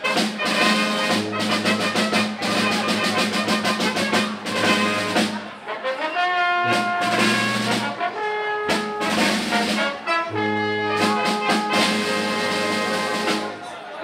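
Live Austrian folk brass music from a small Tanzlmusi ensemble: trumpets and low brass playing over a bass line, with a quick steady beat at first and longer held chords about halfway through.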